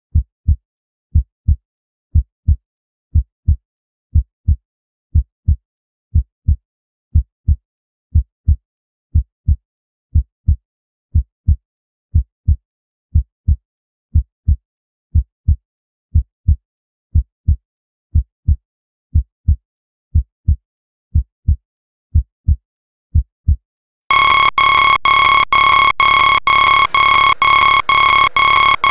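Heartbeat sound effect: paired low thumps, lub-dub, about once a second with silence between. Near the end, loud electronic music with sustained high synth tones and a regular beat cuts in suddenly.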